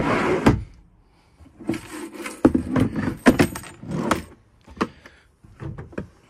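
Keys and the dog box's pull-out drawer and lift-out storage bins being handled: a run of light jangling rattles and clicks, then a few fainter clicks near the end.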